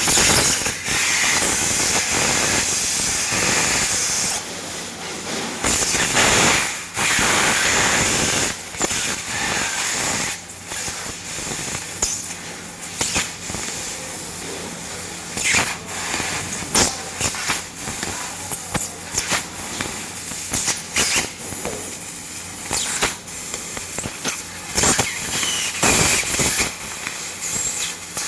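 CNC fiber laser cutting sheet metal: a steady hiss of assist gas through the cutting head with sharp crackles and pops as the beam pierces and cuts. It is loudest for about the first ten seconds, then drops to a lower hiss broken by scattered pops.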